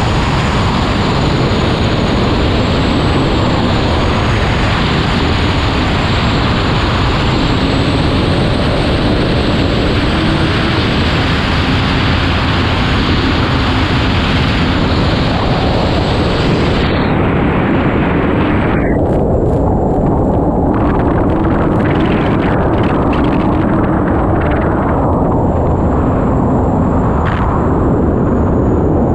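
Unlimited hydroplane's turbine engine running at racing speed, heard from onboard under heavy wind and water rush on the camera, with a thin high whine that wavers in pitch. About two-thirds of the way through the hiss suddenly thins out, leaving a rougher, choppier rush.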